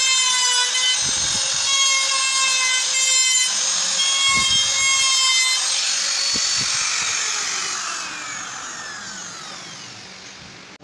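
Handheld trim router running at high speed with a steady whine while cutting a bowtie inlay recess into a solid wood slab. About six seconds in it is switched off, and its whine falls in pitch and fades as the motor spins down.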